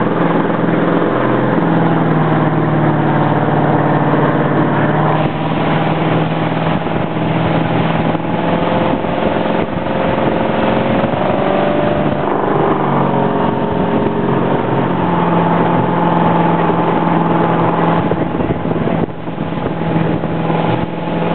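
Inboard engine of a wooden runabout motorboat running steadily underway, with water and wind noise over the hull. The engine note shifts slightly in pitch about halfway through.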